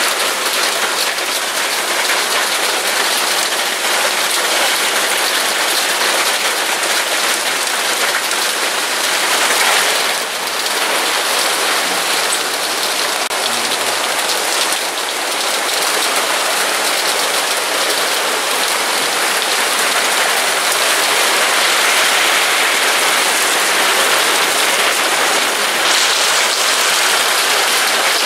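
Heavy rain pouring down steadily, a dense even hiss of a downpour.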